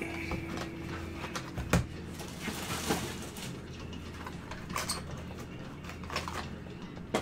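Gloved hands handling a trading-card box and its plastic wrapping: plastic crinkling and cardboard rustling, with a sharp knock about two seconds in and scattered light clicks and taps.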